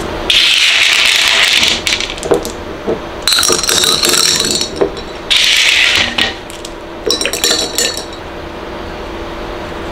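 Small white pebbles dropped into a glass vase of water, clinking against the glass in two clusters a few seconds apart. Each cluster comes after a loud rushing sound.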